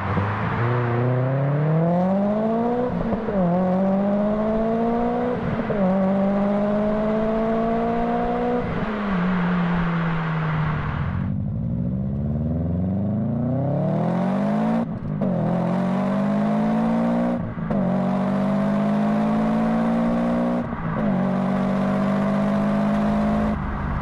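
Two in-cabin clips of Subaru turbocharged EJ boxer engines accelerating hard through the gears, the pitch climbing and dropping back at each upshift, three shifts in each clip. The first, in a tunnel, has Fujitsubo equal-length headers; after a cut about 11 s in, the second is a Legacy RS with unequal-length headers, the source of the Subaru boxer rumble.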